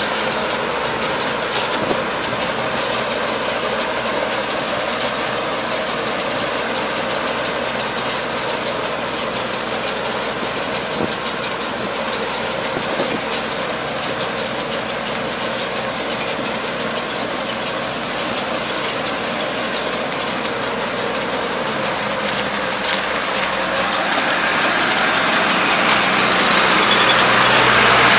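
Tractor's diesel engine running steadily as it pulls a round baler gathering rice straw, with a fast rattling clatter from the baler. Grows louder near the end as the machine comes close.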